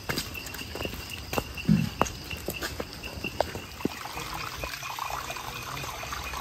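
Rainforest insects trilling steadily in a fast pulse. Footsteps and scattered knocks on a wet, muddy trail sound over the first few seconds, the loudest a dull thump a little under two seconds in.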